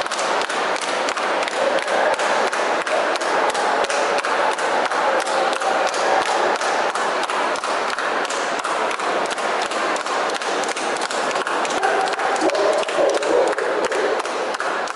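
Busy exhibition-hall crowd noise, with a steady run of sharp taps at about three a second.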